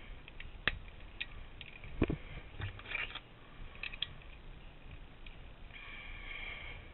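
Scattered plastic clicks and scraping of a Pyraminx puzzle being handled as its corner tips are put back on, the loudest click about two seconds in and a stretch of scraping near the end.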